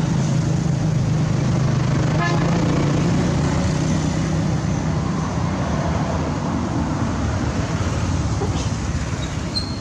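Steady motor-vehicle engine rumble with a low hum that fades after about five seconds, over a broad background noise.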